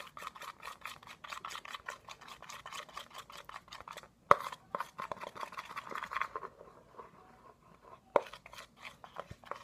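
Spoon stirring glue in a bowl, rapid scraping and clicking against the bowl, several strokes a second. The stirring stops about two-thirds of the way in, with a sharper knock shortly before that and another near the end.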